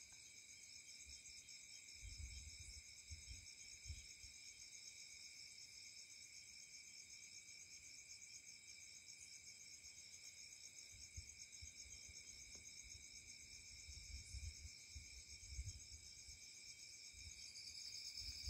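Faint night insect chorus: steady trilling at several high pitches at once, with low thuds now and then.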